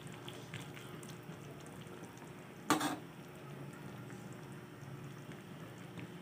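Pot of fish broth simmering on a stove, with a steady faint bubbling. There is one brief loud clatter a little under three seconds in.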